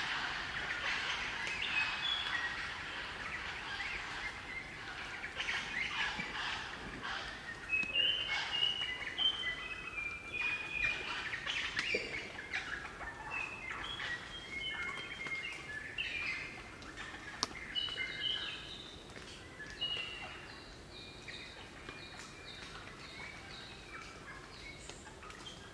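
A group of crimson rosellas singing and chattering: many short, clear, bell-like whistled notes at varied pitches among chattering calls. Busiest in the first half, thinning near the end to a few evenly repeated piping notes.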